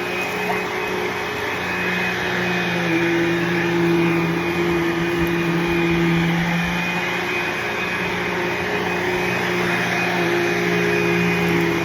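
Bissell CleanView II bagless upright vacuum cleaner running steadily, its motor hum swelling and easing slightly in loudness as it is worked over the floor.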